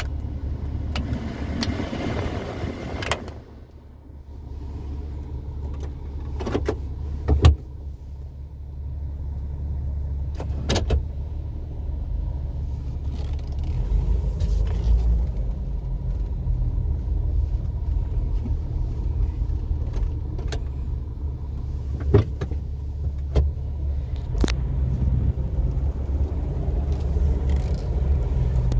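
Cabin sound of a 2004 Jeep Wrangler Sport's 4.0-litre straight-six and tyres while driving: a low, steady rumble that grows louder about halfway through as the Jeep picks up speed, with a few sharp knocks and clicks from the cabin.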